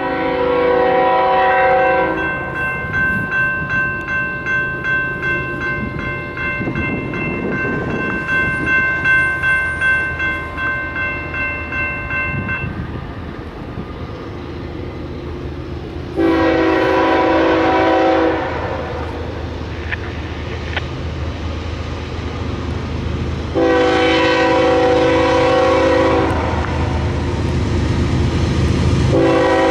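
Air horn of an approaching GE ES44DC freight locomotive sounding several long blasts: one at the start, one about two-thirds of the way in, another a few seconds later, and a fourth beginning near the end. Between the first two blasts a bell rings rhythmically for about ten seconds. Under it all the low rumble of the diesel locomotives grows as the train nears.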